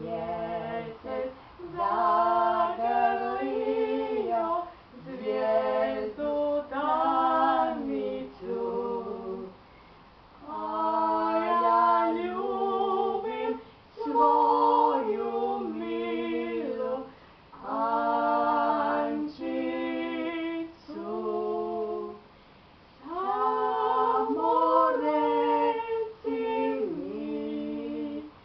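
An elderly woman and a younger woman singing a song together unaccompanied, in phrases of a few seconds separated by brief pauses.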